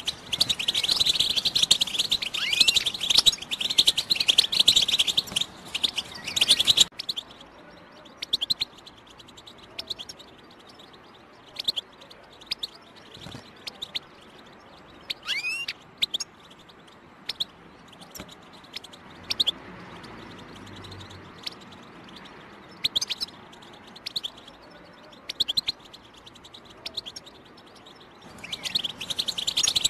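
European goldfinch song: a dense, rapid twittering that cuts off abruptly about seven seconds in. After it come scattered single chirps and calls, with a rising whistled note near the middle, and then the full twittering starts again near the end. It is the kind of recorded song played to prime a caged goldfinch to sing.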